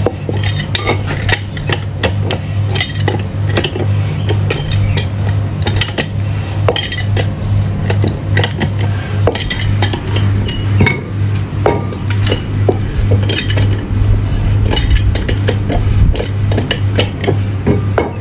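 Metal parts and tools clinking and knocking against each other as a center pivot gearbox is assembled by hand: irregular sharp metallic clinks throughout, over a steady low hum.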